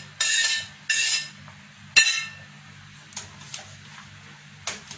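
Metal utensil scraping across a ceramic plate in three short, rasping strokes, then a sharp clink about two seconds in and a few light metal taps of a spoon against a steel stockpot.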